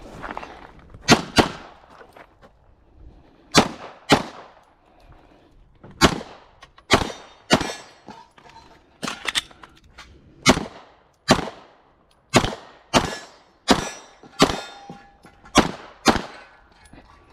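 Firearm shots fired one after another at a steady working pace through a 3-gun stage, about seventeen in all, several in quick pairs, with steel targets ringing after some hits.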